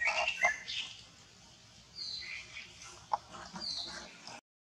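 Macaques giving a quick run of short, high-pitched calls in the first second, followed by a few fainter high chirps and a single sharp click. The sound cuts out just before the end.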